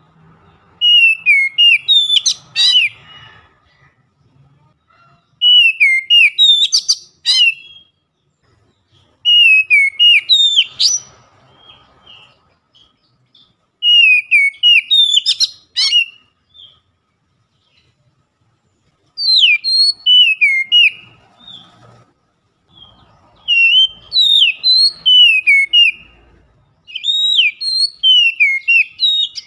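Caged oriental magpie-robin (kacer) singing loudly. It gives seven short phrases of clear, swooping whistled notes, about one phrase every four seconds, with pauses between them.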